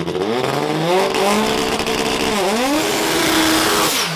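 Turbocharged four-cylinder VW Gol drag car revving hard in a burnout, its front tyres spinning and squealing. The revs climb and hold high, dip briefly about halfway, then drop near the end as a high whistle falls away.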